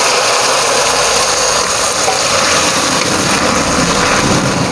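Water poured into a hot steel wok of sautéed vegetables, hissing and boiling up in a steady loud rush.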